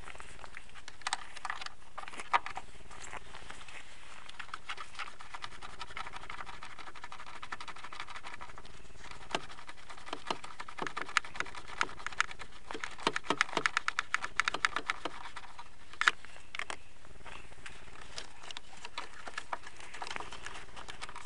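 Socket ratchet on an extension bar clicking in quick runs as a 13 mm nut holding the battery retaining bracket is undone, with scattered single clicks and knocks of the tool against the metal.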